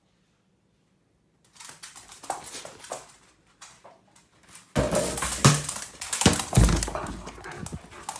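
A curly-coated dog playing right by the microphone, its noises mixed with knocks, rustling and handling sounds. It starts about a second and a half in and grows much louder near five seconds, with a heavy thump soon after.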